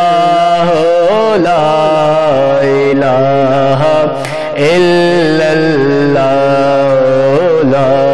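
A man singing a devotional Urdu verse in long, drawn-out notes that bend and waver in pitch, with a brief break for breath about four seconds in.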